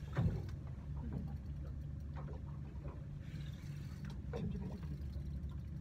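Boat engine idling with a steady low hum, and a single knock about a third of a second in.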